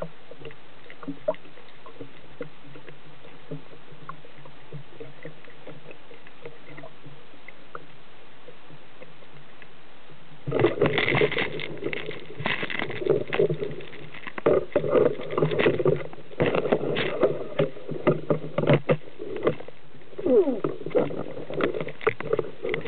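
Water-muffled handling noise picked up by a camera mounted on a speargun: a steady low hiss, then from about ten seconds in a dense run of irregular clicks, knocks and scrapes as the diver's gloved hand works the gun and its shooting line.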